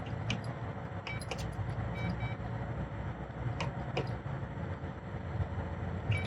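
ONNAIS keyless RV entry lock keypad giving a few short electronic beeps and clicks as it is operated to unlock, over a steady low rumble.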